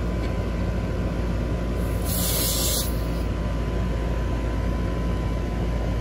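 Outdoor air-conditioner condensing unit running with a steady hum. About two seconds in there is a short, sharp hiss of refrigerant as a gauge hose is fitted to a service port, lasting under a second.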